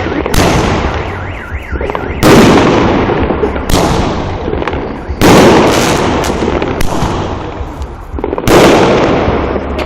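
Consumer fireworks going off: about six loud bangs a second or two apart, each followed by a fading crackle.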